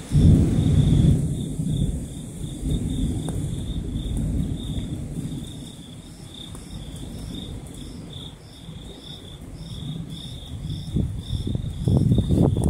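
Thunder rumbling loudly at the start, fading away, then rumbling up again near the end. Crickets chirp steadily throughout, one in a slow even beat.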